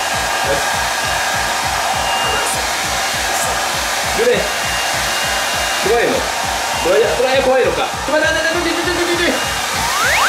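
Handheld hair dryer blowing steadily while drying a wet Italian Greyhound puppy. Over it come several short, bending, pitched whines from the puppy, mostly in the second half, with a rising one near the end.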